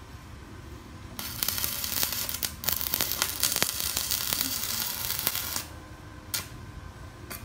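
Stick welding arc from a Kenmax ARC 200 welder crackling and sizzling as it burns a 3.2 mm electrode. It starts about a second in and stops after about four and a half seconds, followed by two short crackles.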